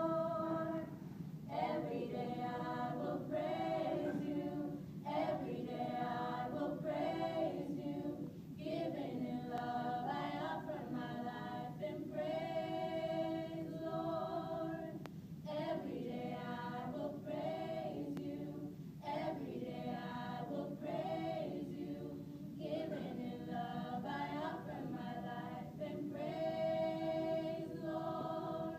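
Small gospel choir singing a cappella in harmony, in phrases broken by short breaths, with a few long held chords.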